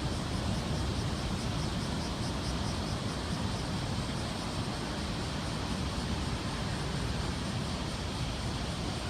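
Steady roar of heavy ocean surf raised by a typhoon swell, with wind rumbling on the microphone.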